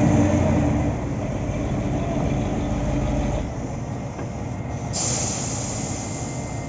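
Heavy diesel machinery engine running steadily with a low drone that drops in level about three and a half seconds in. A sudden high hiss starts about five seconds in.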